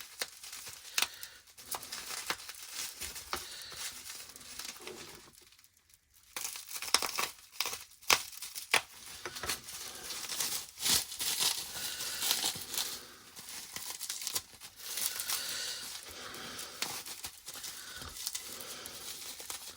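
Plastic packaging crinkling and rustling in irregular bursts of handling as model kit parts are unwrapped, with a brief pause about five and a half seconds in.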